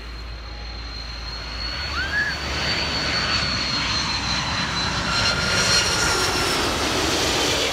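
Jet engines of a KLM twin-engine wide-body airliner on low final approach, a rushing jet noise with a steady high whine that grows louder as the plane comes close overhead, loudest about six seconds in.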